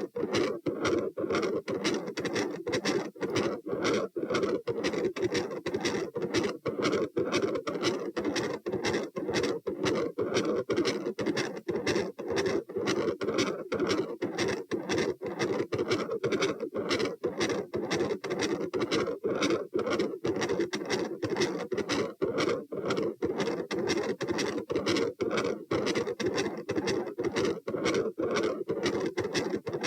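Fast, regular heartbeat heard through a stethoscope at the pulmonary area, with a continuous whooshing murmur running between the beats: the continuous machinery murmur typical of patent ductus arteriosus.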